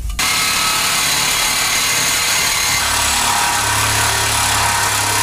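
Reciprocating saw (Sawzall) cutting through a metal exhaust pipe, starting abruptly just after the beginning and running steadily.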